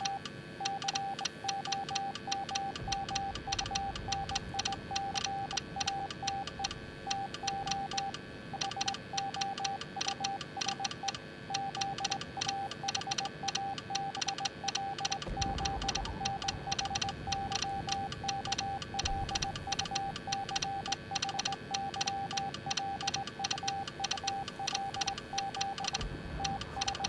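Morse code sent as a single steady beep, switched on and off in short and long elements, over a fast, even clicking. A brief low rumble comes about halfway through.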